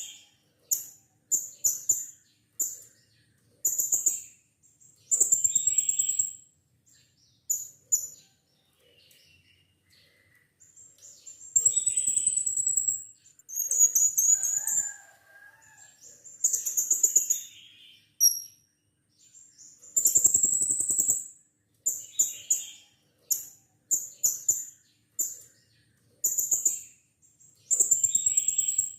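Blue-crowned hanging parrots (serindit) calling: very high, shrill chirps in quick clusters, with several longer drawn-out calls of about a second, repeated irregularly.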